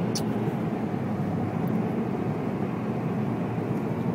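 Steady road and engine noise of a car driving, heard from inside the cabin, with a brief high squeak just after the start.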